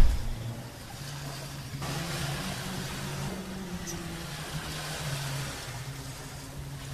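Steady boat engine hum over wind and water noise, opening with the fading tail of a low boom.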